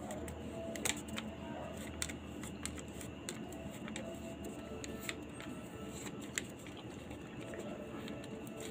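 Paper backing of an RFID sticker rustling and crinkling in the fingers as it is peeled away and the sticker is pressed onto a motorcycle's plastic headlight lens. Scattered light clicks and taps throughout.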